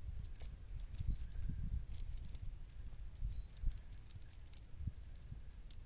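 A fishing net being handled on the grass: irregular light clicks and rustles over a low rumble.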